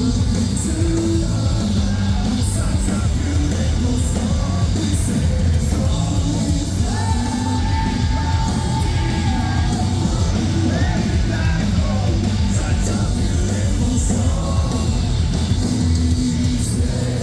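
Live metalcore band playing loud, with full drums, bass and guitars under yelled vocals; a sung note is held for a few seconds midway.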